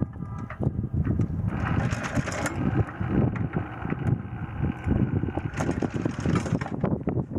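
Sailboat's inboard diesel running under choppy wind buffeting on the microphone. A higher, steady whirring hum joins from about a second and a half in and drops away near the end.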